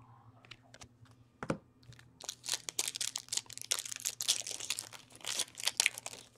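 A 2015/16 Upper Deck Series 1 retail hockey card pack being torn open and its wrapper crinkled. There is a single sharp click about a second and a half in, then about four seconds of dense crackling and tearing.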